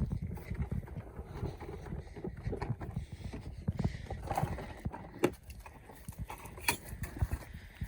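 Small animals scampering and scuffling on the ground: rapid, irregular thuds and clicks of paws, with a few sharper taps.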